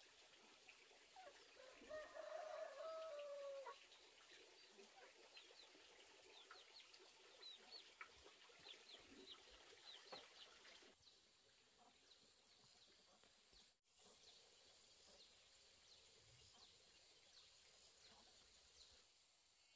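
A chicken gives one drawn-out call about two seconds in, falling slightly at its end, over faint, quick high chirping from small birds that runs on through the rest.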